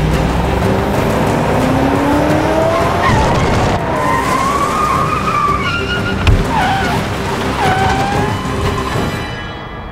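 A car's engine revving up, then tyres squealing in several wavering screeches, with one sharp knock about six seconds in, over dramatic soundtrack music.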